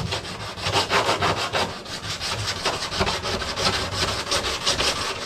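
Sandpaper rubbed by hand in quick back-and-forth strokes over a car hood, scuffing the area around a crack so that a fiberglass patch will bond.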